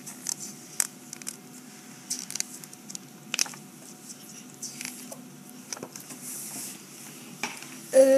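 Small scattered clicks, taps and rustles of a picture book and hand-held camera being handled in a small room, over a faint steady hum; a child's voice starts right at the end.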